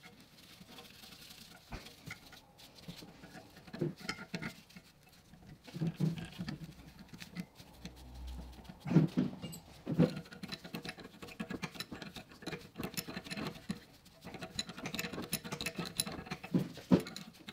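Small clicks, scrapes and taps of gloved hands threading the brake line fitting into a newly mounted rear brake caliper, with a few louder knocks now and then.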